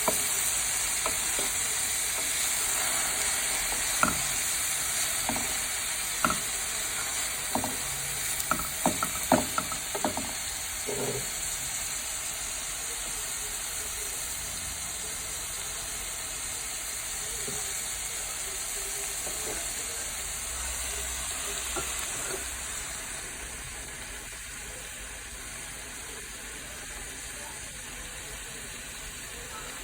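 Vegetables sizzling as they stir-fry in a pan, with a spatula knocking and scraping against the pan in the first ten seconds or so. The sizzle grows gradually quieter toward the end.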